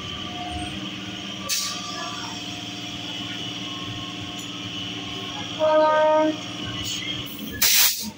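Steady running hum of an electric multiple-unit local train standing at the platform. About six seconds in, a train horn gives a short blast of under a second, and near the end a short, loud hiss-like burst stands out.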